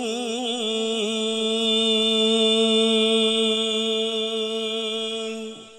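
Male voice in mujawwad-style Qur'an recitation, sung into a microphone, holding out the final syllable of 'al-'amilin'. A quick wavering melismatic ornament settles within the first second into one long steady note, which cuts off about five and a half seconds in.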